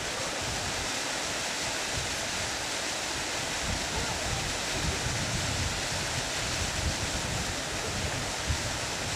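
Steady rush of running water from a mountain stream or waterfall, with an uneven low rumble swelling in and out from about four seconds in.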